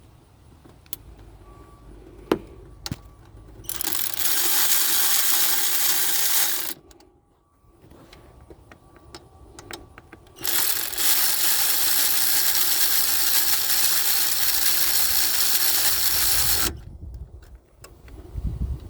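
A power tool runs twice, about 3 s and then about 6 s, driving in the new belt tensioner's mounting bolt after it was started by hand. A few light metallic clicks come before it.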